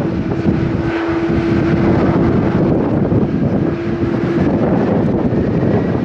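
Jet engines of an ANA Boeing 767 airliner running as it rolls along the runway, a loud, steady engine noise carrying a low steady tone that fades in and out. Wind buffets the microphone throughout.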